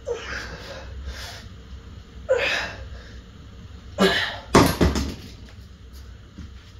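Sharp, effortful exhalations from a man straining through single-arm cable tricep extensions on a heavy load, then a few heavy clanks about four to five seconds in as the loaded weight plates come down onto the floor.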